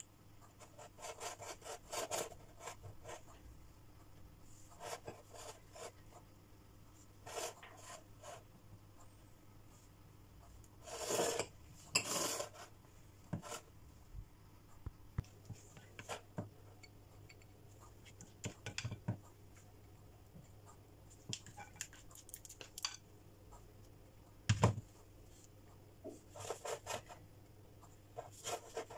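Spoon scraping against small glass cups and a serving dish as lemon cream is scooped up and spread, in short scattered scrapes with two longer ones a little before halfway and a single sharp knock later on.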